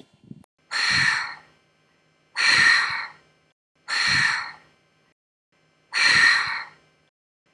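Four breathy sighs or heavy exhalations from a voice, each under a second long, about one and a half to two seconds apart.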